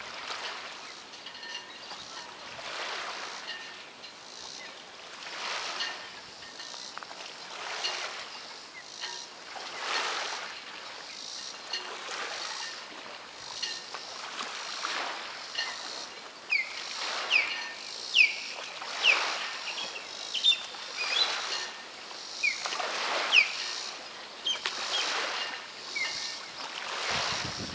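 Small waves lapping and splashing around dock pilings and moored boats, in soft surges every second or two. From about halfway through, a bird calls over it again and again with short, sharp, downward-sliding chirps, which are the loudest sounds.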